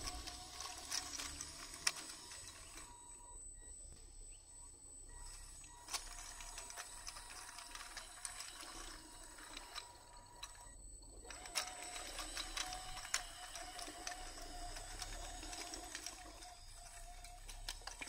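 Whine of a 1:12 scale RC crawler dump truck's small electric motors and brushless hydraulic pump working the tipper bed, with scattered clicks from its metal tracks on rubble. The whine stops twice, for about two seconds early on and briefly about two-thirds of the way through.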